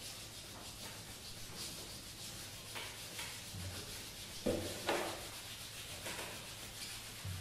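Cello and trombone playing contemporary extended techniques: a continuous breathy rubbing and scraping noise without clear pitch. A few short, soft low thumps come through about halfway and again near the end.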